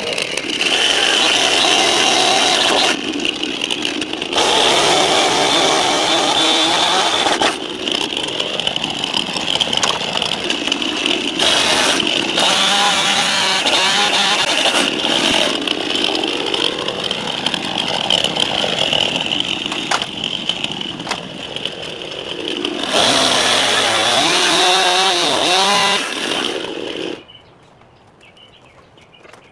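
Chainsaw running and cutting through wooden posts, the engine revving up and down between cuts; it stops suddenly near the end.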